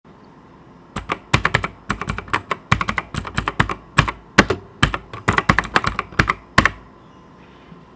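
Typing on a TVS Platina (TVS Gold) wireless mechanical keyboard with Cherry MX Blue switches: a run of crisp, irregular key clicks that starts about a second in and stops about a second before the end.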